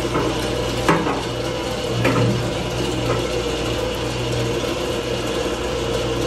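Cooking-oil filtration machine's pump motor running steadily with a low hum, pushing fryer oil out through its wand and return hose. Two short clicks sound about one and two seconds in.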